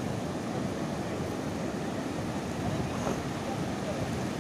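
Sea surf breaking and washing up a flat sandy beach: a steady rushing wash that swells slightly about three seconds in.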